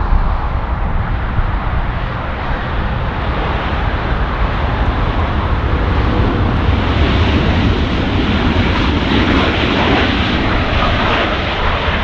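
Jet airliner engines heard close by: a loud, steady rushing noise with a deep rumble, growing a little brighter past the middle.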